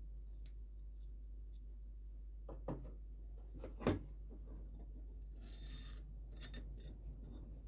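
Handling of tools and metal parts at a workbench: a few light knocks, the loudest about four seconds in, then a brief scrape about five and a half seconds in, over a low steady hum.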